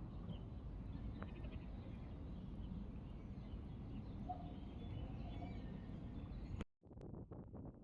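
Outdoor ambience: a steady low rumble with a few faint bird calls. It cuts off suddenly near the end and gives way to a quick run of light knocks or taps.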